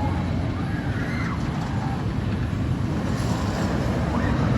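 Roller coaster ride: a steady, loud rumble of the train running on the track, with wind rushing over the microphone.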